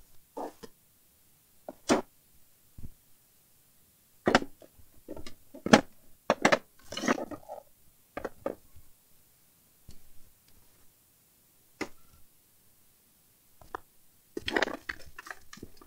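Objects being picked up, moved and put down in a search through workshop gear: scattered knocks and clicks at uneven intervals, with a longer clattering rattle about seven seconds in and another cluster of knocks near the end.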